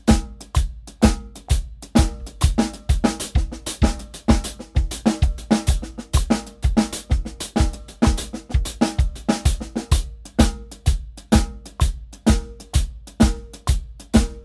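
Acoustic drum kit played at a steady 128 beats per minute: bass drum, snare and hi-hat strokes in a practice exercise that mixes a time groove with single-paradiddle permutations in triplets.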